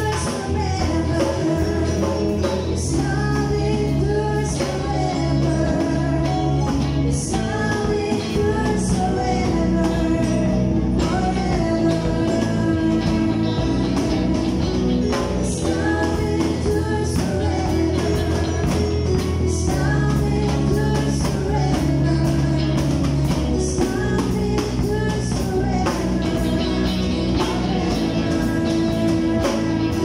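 Live band playing a worship song: drum kit, electric guitars and bass, with a singing voice over them.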